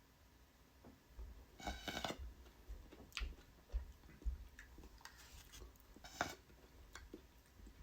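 Someone sipping a frozen pineapple float, with one louder noisy sip about two seconds in and scattered faint clicks and soft handling taps of the cup.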